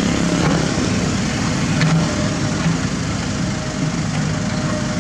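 Diesel engine of a mini excavator running steadily under work, with a faint knock about two seconds in.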